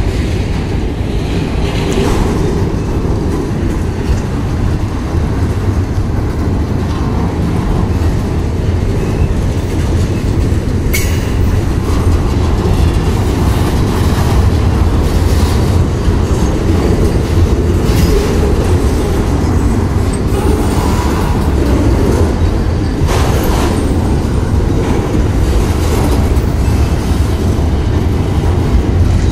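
Union Pacific freight train of autorack cars rolling past close by: a steady heavy rumble of wheels on rail, broken by a few sharp clanks.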